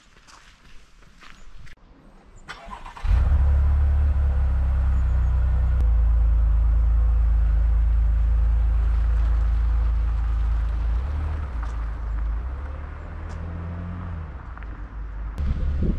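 SUV engine starting right behind the exhaust about three seconds in, then running with a steady deep hum. The hum fades as the SUV drives away.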